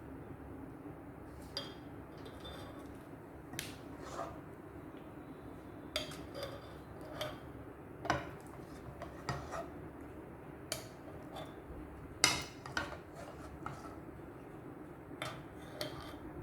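A spoon clinking and scraping against a pot and a glass jar as cooked blueberry jam is spooned into the jar: irregular light clinks, the loudest about twelve seconds in, over a faint steady hum.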